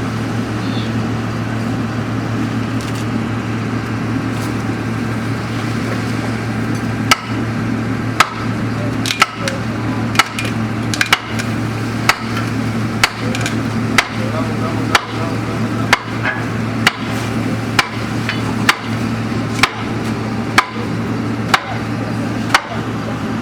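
An engine running steadily, with hammer blows starting about a third of the way in and then falling about once a second in an even beat.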